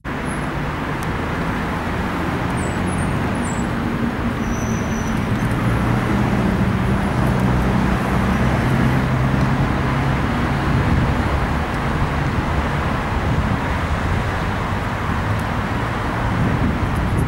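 Steady urban traffic rumble with a low engine drone, with a few faint high chirps about three to five seconds in.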